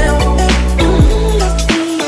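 Background music: a rhythm-and-blues style track with drum hits and a deep bass, whose bass drops out near the end.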